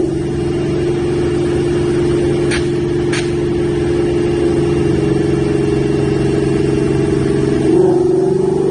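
Ford Mustang GT's V8 engine running at a steady speed, its pitch rising slightly near the end.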